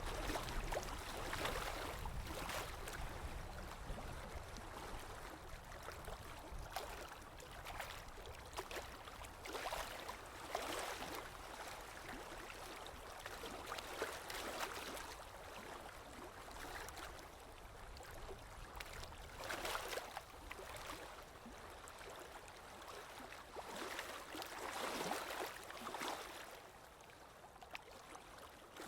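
Small waves lapping and splashing against a shore or hull, in irregular swells every second or few.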